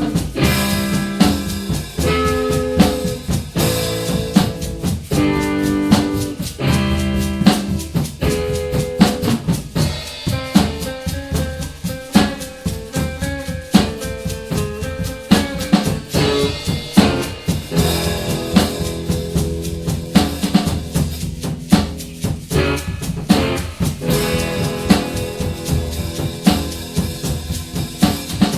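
Instrumental music: a drum kit played busily with bass drum, snare and rimshots, under sustained guitar notes.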